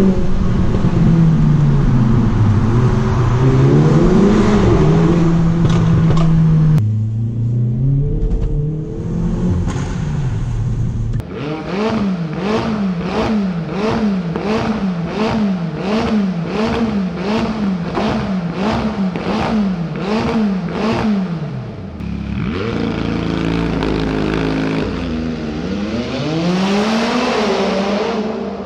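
Performance-car engines revving in a tunnel, several clips in a row. First a Mercedes-AMG's engine accelerates, its pitch rising and falling. Then a McLaren 570S's twin-turbo V8 is revved in quick repeated throttle blips, about three every two seconds, and near the end an engine revs up again.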